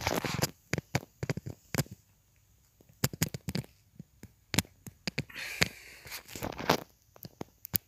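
Handling noise: rustling and clicking of cardboard LEGO boxes and plastic packaging rubbing against the phone as it is moved over them, in irregular clusters of sharp crackles with brief rustles.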